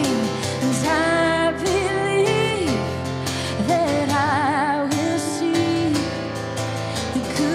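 A woman singing a worship song while strumming an acoustic guitar, with vibrato on a held note about four seconds in.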